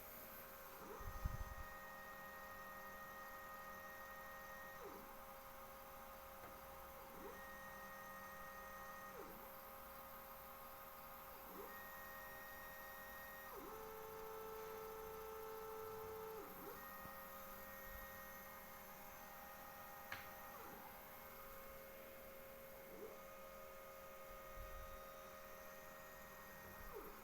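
Faint whine of the small stepper motors on a homemade pen-plotter CNC, with tones that start and stop every second or two as the axes move, over a steady electrical hum. A lower motor tone holds for a few seconds about halfway through.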